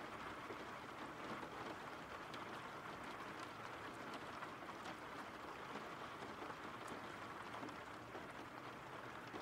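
Steady rain falling: an even hiss of rain with scattered faint drop ticks.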